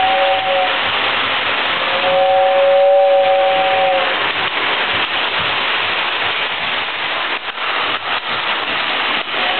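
Lionel toy steam locomotive's whistle blowing a two-note chord, a short blast at the start and a longer one about two seconds in, over the steady whir of the running train.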